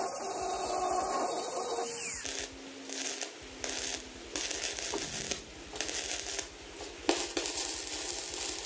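Handheld angle grinder running against the steel tank for about two seconds. Then self-shielded flux-core wire welding, the arc crackling in a string of short bursts with brief pauses between them.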